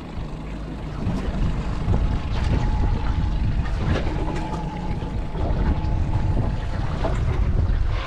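Small boat's outboard motor idling, a steady low rumble, with wind buffeting the microphone.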